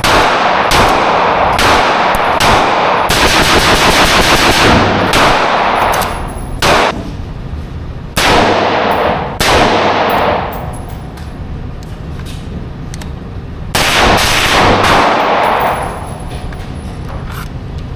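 Rapid-fire strings of gunshots from a semi-automatic firearm with a forced reset trigger: one long run of about six seconds, a single shot, then several shorter strings, each echoing off.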